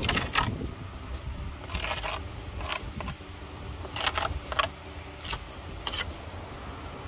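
Steel brick trowel scraping along a fresh course of bricks, cutting off the excess mortar squeezed out of the joints: about seven short, sharp scrapes.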